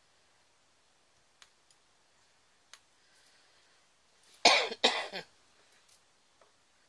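Two quick coughs close together about four and a half seconds in, the loudest sound. Before them come a few faint clicks of metal tweezers setting rhinestones onto a diamond-painting box.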